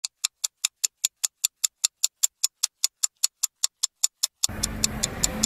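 Clock ticking fast and evenly, about five ticks a second. About four and a half seconds in, a steady low room hum comes in under the ticks, which grow fainter.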